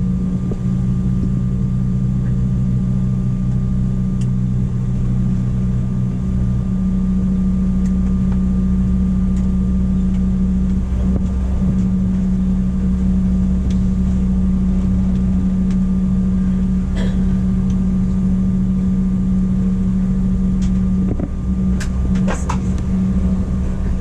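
Steady cabin drone of a Bombardier CRJ-700 regional jet during pushback, heard from inside the cabin: a loud, even hum with a low rumble beneath it. One of the hum tones drops out about six seconds in, and a few light clicks and rattles come near the end.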